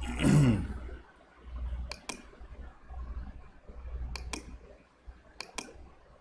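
Three sharp double clicks, a couple of seconds apart, like a computer mouse being double-clicked, over a faint low hum. A brief murmur of voice comes right at the start.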